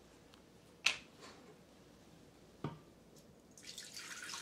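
Screw lid twisted off a 3-quart glass jar of chicken broth with a sharp click about a second in, and a short knock near the middle. Near the end the broth begins pouring from the jar into a stainless steel stockpot with a steady splashing hiss.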